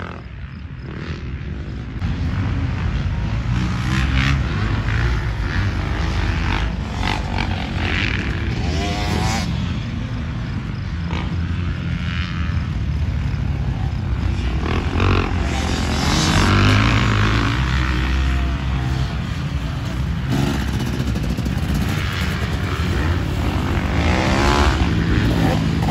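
Motocross dirt bike engines running hard on the track, their pitch rising and falling repeatedly as the riders accelerate, shift and back off.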